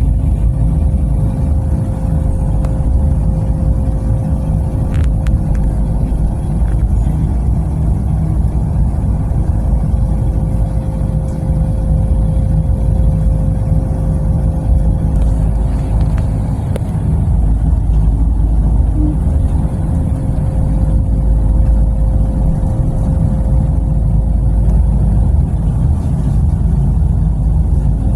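Passenger train running at steady speed, heard from inside the carriage: a loud, even low rumble with a steady hum.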